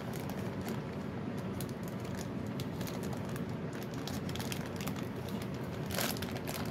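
Clear plastic packaging on a new budget binder being picked open by hand: soft crinkling with scattered small clicks, and a louder crinkle about six seconds in.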